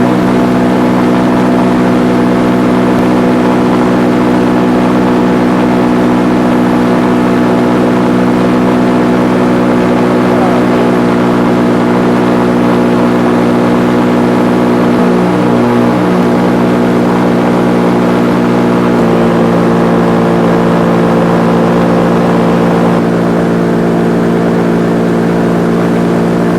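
Paramotor engine and propeller running steadily in flight, a loud even drone. The pitch dips briefly about fifteen seconds in and shifts to a new steady note about four seconds later, as the throttle changes.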